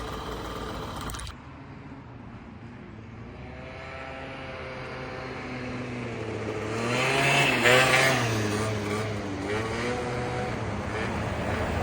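Small Derbi two-stroke moped engine running on its freshly rebuilt Dellorto carburetor, choke off. The sound breaks off suddenly about a second in, then the engine note grows louder over several seconds, its pitch rising and falling as the throttle is worked, loudest about two-thirds through before easing off.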